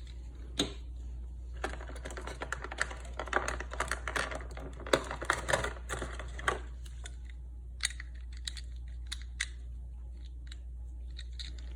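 Hard plastic toy parts and packaging being handled: a busy run of quick clicks and rattles for the first several seconds, thinning to a few scattered clicks. A steady low hum runs underneath.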